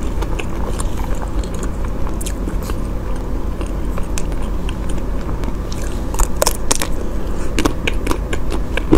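Close-miked chewing and mouth sounds of a person eating chocolate mousse cake, with scattered small clicks and smacks that grow busier about six seconds in, over a steady low hum.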